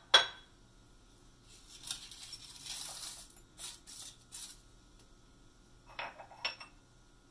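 A small ceramic bowl clinks against a stainless steel stockpot, and dry spices and garlic are poured and shaken out of it onto the vegetables in a rustling patter. Two more clinks of the bowl on the pot come about six seconds in.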